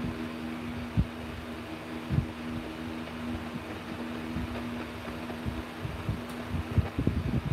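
V115 portable AM radio tuned to 1206 kHz, giving a steady low two-tone hum over a light static hiss, with a few dull thumps, most near the end.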